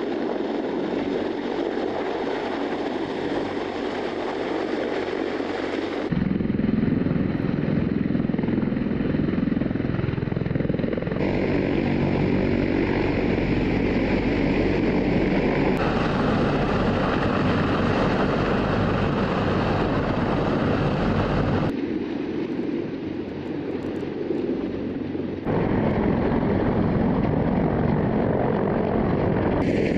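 CH-53 heavy-lift helicopter's rotor and turboshaft engines running loud and steady, hovering with an underslung cargo load and turning on the ground. The sound shifts abruptly several times as the shots change.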